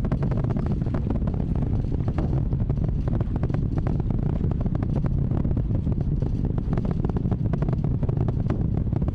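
Space Launch System rocket's solid rocket boosters and RS-25 core-stage engines during ascent: a steady deep rumble full of rapid crackling.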